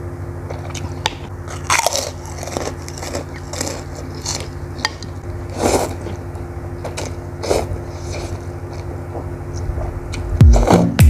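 Close-up eating sounds of instant noodles with meatballs: slurping noodle strands and chewing, in separate short bursts every second or so, over a steady low hum. Guitar music comes in loudly near the end.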